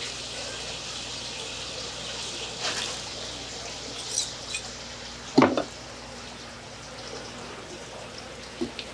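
Water splashing and dripping from a dip net lifted out of a live seafood tank, over a steady hiss of water. There are a few short splashes or knocks, the loudest about halfway through.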